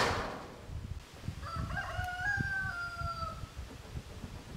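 A rooster crowing once: one drawn-out, stepped call of about two seconds, starting about a second and a half in. At the very start, the tail of a loud rushing noise dies away within a second.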